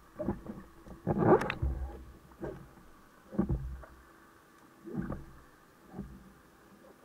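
Underwater water-movement noise from freedivers swimming: about six irregular whooshing thumps, the loudest and longest a little over a second in.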